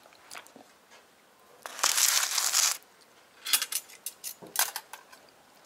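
Handling noise: about a second of loud, crinkly rustling, then a quick run of light clicks and taps.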